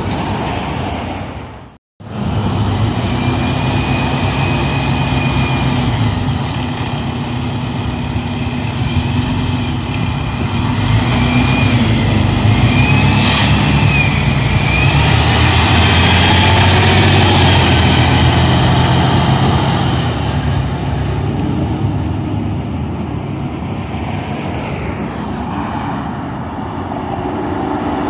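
Fire department aerial ladder truck's diesel engine running as it drives past close by, with a short hiss of air, like an air brake, about halfway through.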